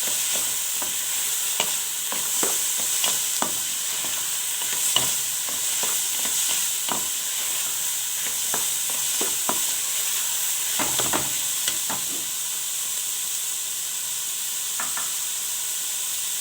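Diced carrot, red pepper and onion sizzling in oil in a pan, with a spoon scraping and knocking against the pan now and then as the vegetables are stirred, a quick flurry of knocks about eleven seconds in.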